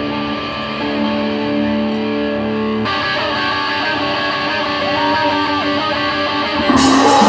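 Live rock band: held chords ring steadily, change about three seconds in, and a note glides up and back down around five seconds. Near the end, drums and the full band come in, louder.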